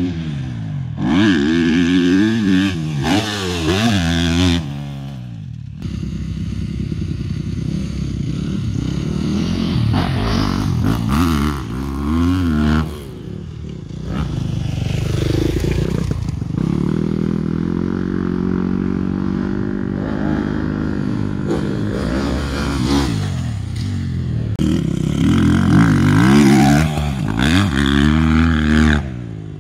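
Motocross dirt bike engines revving up and down over and over as the riders work the throttle through the jumps and turns. The sound changes abruptly a few times.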